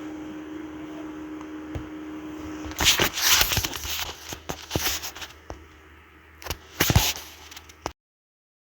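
A metal shield being pried off a Samsung A12 phone's circuit board, with sharp clicks and crackling scrapes of metal on metal, after a few seconds of steady low hum. The sound cuts off abruptly near the end.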